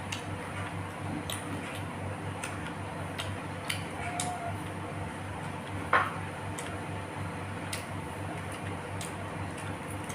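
Close-up eating sounds: chewing and wet mouth sounds with scattered light clicks and taps, one louder knock about six seconds in, over a steady low hum.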